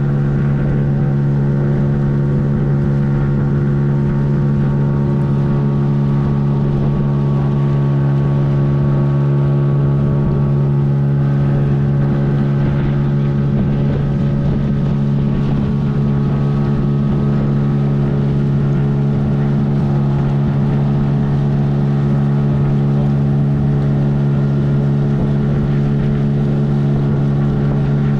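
A motorboat's engine running steadily at a constant speed: a loud, even hum that does not change in pitch.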